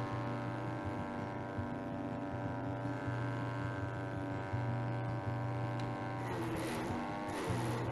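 Small petrol garden chipper running with a steady engine hum. From about six seconds in, branches are fed in and shredded with a noisy crunching, and the engine note dips and recovers under the load.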